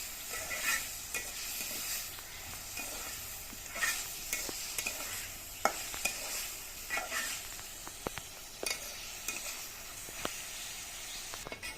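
Chicken pieces with spice paste sizzling in a frying pan while a spatula stirs them, with scattered sharp clicks of the utensil knocking and scraping on the pan.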